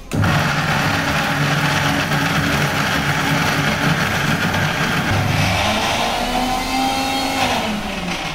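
Bajaj mixer grinder's electric motor switched on and grinding rice into a wet paste in its steel jar, a loud steady whirr that starts abruptly. Its pitch rises about five seconds in and drops again near the end.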